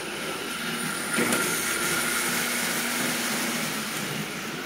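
Marx 999 toy electric train running on three-rail tinplate track: a steady whir of the electric motor with the rumble of wheels on the metal rails. It gets louder about a second in.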